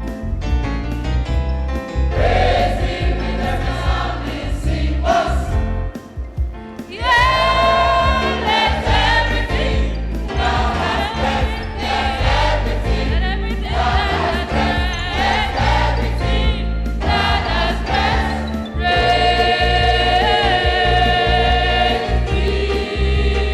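Choir singing a gospel song with instrumental accompaniment and a heavy bass. The sound drops briefly about six seconds in, the full choir comes back in, and the voices hold a long chord near the end.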